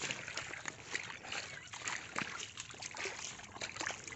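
Footsteps through wet water hyacinth and shallow muddy water: irregular rustling, crackling and light splashing.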